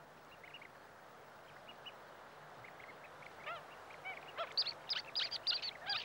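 Wrybills calling with short, arched chirps, sparse and faint at first, then quicker and louder from about halfway, several birds overlapping. A faint steady hiss runs underneath.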